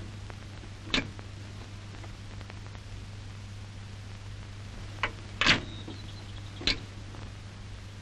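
Background noise of an old film soundtrack: a steady low hum under even hiss, with a few sharp clicks, once about a second in and three times between five and seven seconds in.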